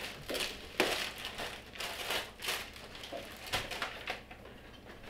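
Plastic packaging crinkling and rustling in irregular bursts as a dry bag is worked out of its wrapper. It dies down after about four seconds.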